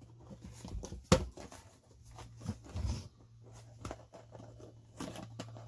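Small clicks and taps of a plastic radio housing being handled and worked apart, with one sharper click about a second in, over a low steady hum.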